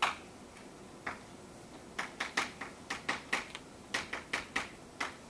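Chalk on a blackboard while an equation is written: irregular sharp taps and clicks, one or two at first, then several a second from about two seconds in.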